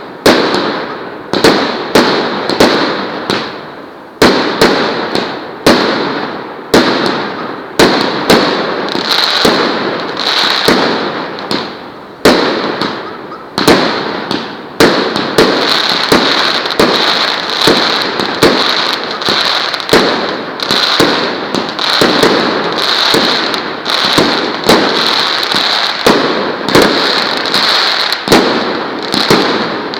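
Fireworks battery (Partizan 6500) firing shot after shot, each a sharp bang followed by crackling. In the first half the shots come about once a second; from about halfway they come faster, with continuous crackling between them.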